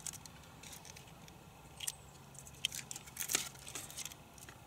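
Scattered crinkles and light taps: aluminium foil being peeled back from a block of cheese, and the cheese and a knife set down on a plastic chopping board. The sharpest tap comes a little over three seconds in.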